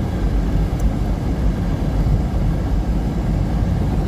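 Steady low rumble of a car driving slowly through snow, heard from inside the cabin: engine and tyre noise with no changes in pitch.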